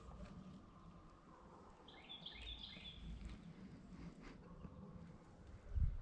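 Faint outdoor background with a bird calling a quick run of short, high chirps about two seconds in. A low thump comes near the end.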